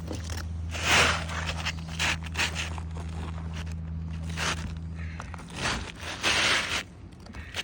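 Asphalt roof shingles being handled: a series of short scraping, crackling rasps as brittle shingles are lifted and rubbed. Under them a steady low hum runs and stops about five seconds in.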